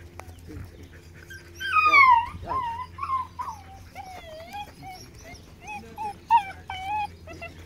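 Dog whining: a long, loud falling whine about two seconds in, then a string of short, high whimpers and yips.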